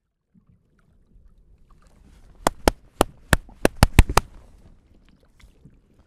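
Hands clapping sharply about nine times in quick succession, a sync clap to line up the camera audio, over a low wash of water around a kayak.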